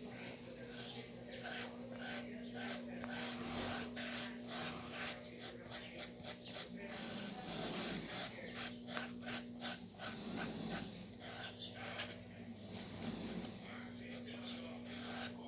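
Paintbrush rubbing and scratching across a styrofoam model airplane in quick, irregular strokes, over a steady low hum.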